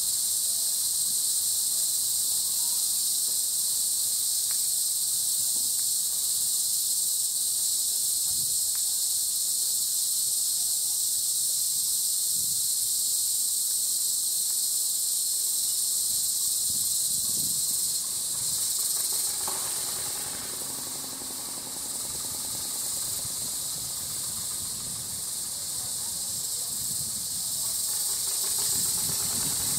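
Insects droning steadily in a high-pitched chorus, easing off slightly for a few seconds past the middle.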